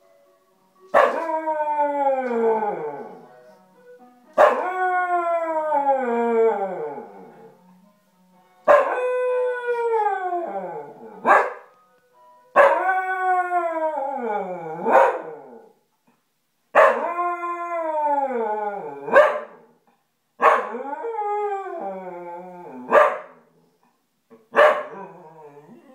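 A Scottish terrier howling along to an ice cream van: seven long howls that each slide down in pitch, several ending in a short sharp yip.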